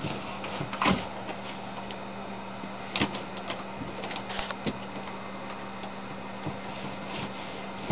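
Cardboard firebox doors on a homemade cardboard train engine being opened and handled: a few light knocks and scrapes, the sharpest about a second in and three seconds in, over a steady low hum.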